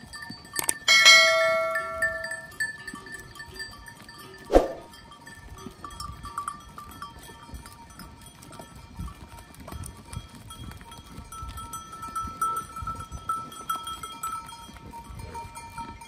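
Goat bells on a walking herd of goats: one loud ringing clang about a second in that dies away over a second or so, then fainter tinkling. A short, sharp loud sound comes about four and a half seconds in.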